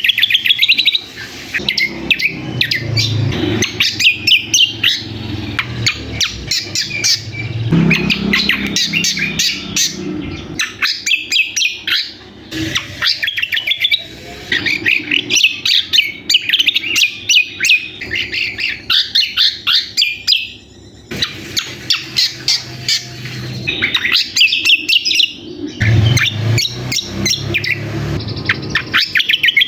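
Cucak kombo (kecial kombo) songbird singing a busy, rapid chattering song of quick high chirps in long bursts, broken by short pauses. A steady low hum runs underneath.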